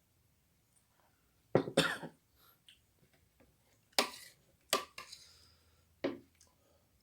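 A person coughing in several short, sudden bursts: a double cough about a second and a half in, then three single coughs.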